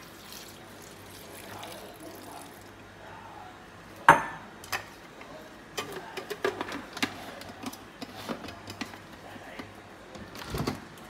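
Water being poured into a blender jar of chopped pandan leaves. About four seconds in comes one sharp knock, then a run of clicks and knocks from the jar and its lid being handled.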